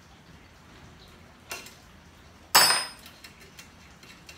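Steel tube nut wrench and brake-line fitting clinking: a sharp click about a second and a half in, then a loud ringing metal clank, followed by light ticks.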